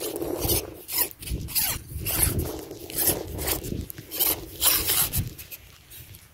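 Rasping, scraping strokes of a telescopic fishing pole being collapsed hand over hand, its sections sliding against one another and against the hands. The strokes come irregularly and die away near the end.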